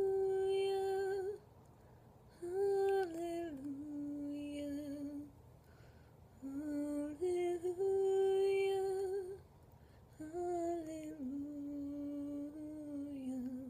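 A young woman's unaccompanied voice singing a slow wordless melody, closer to humming than to words, in four phrases of long held notes with short breaths between them.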